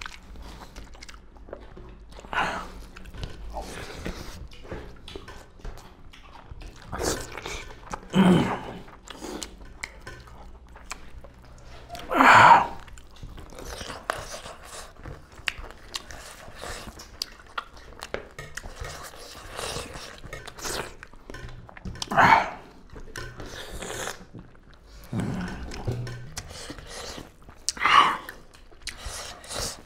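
Two people eating rice and spicy duck curry by hand: close chewing and mouth noises, broken by a few short, louder sounds now and then, the loudest about twelve seconds in.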